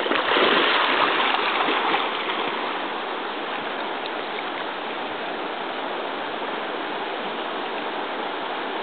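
Steady rush of flowing water, louder and fuller for the first two seconds before settling to an even level.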